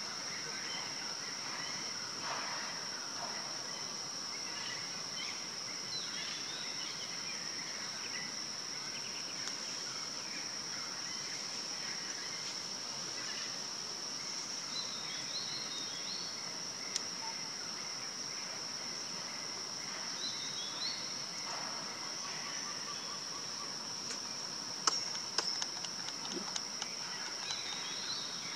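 Steady high-pitched insect drone with scattered short bird chirps. A few sharp clicks come near the end.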